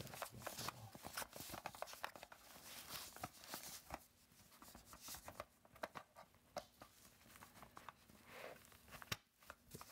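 Plastic surge protector and its cord being handled and pushed into a padded nylon camera backpack: scattered rustling, scraping and light clicks, with one sharp click about nine seconds in.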